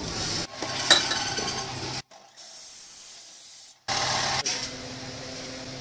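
Abrasive cut-off saw grinding through steel tube, a rough hissing rasp. The sound changes abruptly twice, dropping to a quieter hiss about two seconds in and coming back loud about four seconds in.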